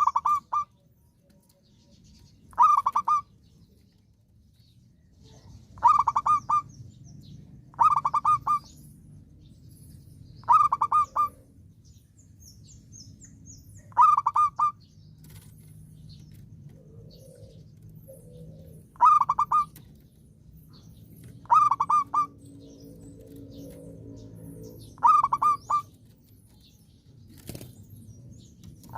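Zebra dove (perkutut) singing: a series of short, quick pulsed coos, repeated every few seconds.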